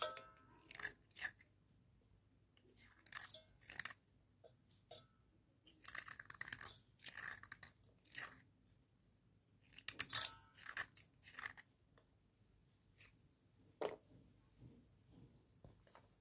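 Wet cubical slate pencils crunching as they are crushed by hand, in short irregular bursts of crackling snaps with pauses of a second or two between them.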